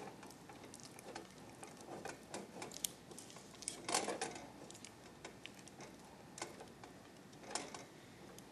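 Spatula stirring a thick brown sugar and corn syrup mixture in a stainless steel saucepan, working the sugar to dissolve and the lumps out: faint, irregular scrapes and light clicks against the pan, with a louder scrape about four seconds in and another near the end.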